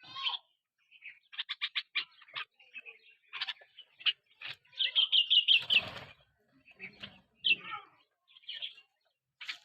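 Birds chirping: scattered short high calls and quick runs of repeated chirps, with a brief rustling burst about six seconds in.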